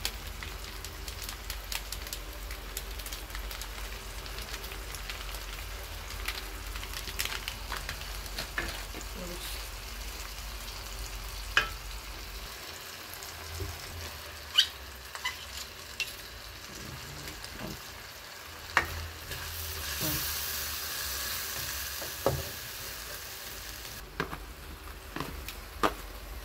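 Onions, potatoes and carrots sizzling steadily in oil in a stainless steel wok, with turmeric frying in. A spatula knocks against the pan with sharp clicks now and then, and the sizzle grows louder for a few seconds about two thirds of the way in.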